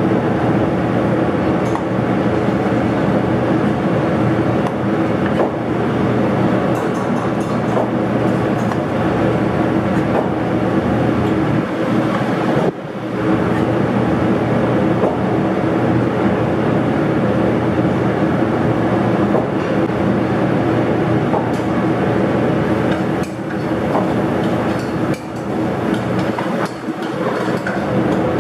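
Steady roar of a commercial kitchen's exhaust hood fan running over the gas range, with occasional clinks of pans and utensils.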